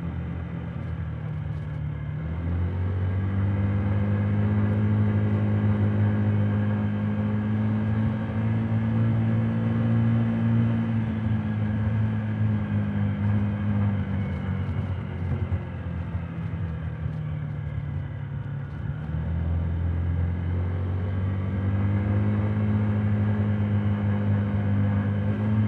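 Honda Today 50cc scooter's small four-stroke single-cylinder engine running while being ridden, heard muffled from inside the under-seat helmet compartment. The engine note picks up a couple of seconds in and holds, eases off around the middle, and picks up again a few seconds later as the scooter accelerates once more.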